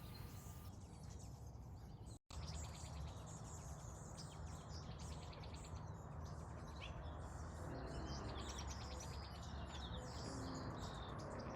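Dawn chorus of mixed wild birds: many short chirps and song phrases overlapping, faint, over a steady low rumble. The sound drops out for a split second about two seconds in.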